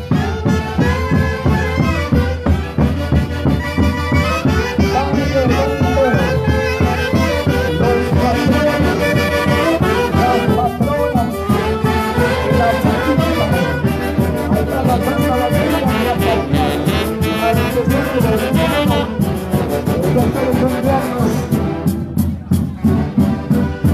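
Live street band of saxophones with bass drums playing a dance tune, the drums beating a steady rhythm under the saxophone melody.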